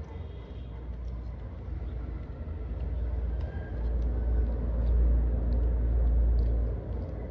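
A low rumble that swells about four seconds in and drops away near the end, with a few faint small clicks above it.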